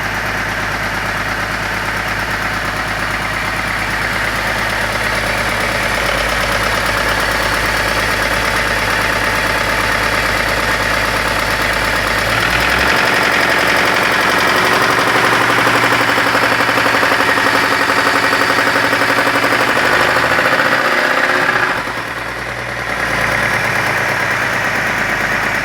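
BMW M54 3.0-litre inline-six running with a steady rapid knock from the bottom end, which the mechanics preliminarily take for a connecting rod with a spun bearing, possibly from oil starvation. It gets a little louder about halfway through and dips briefly near the end.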